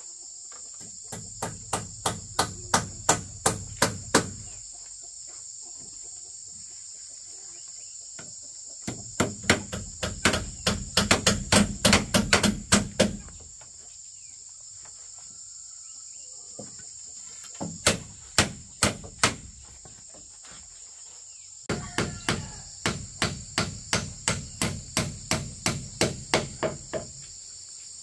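Hammering: four runs of quick, sharp hammer blows, about three a second, with pauses between runs. A steady high-pitched chorus of crickets runs underneath.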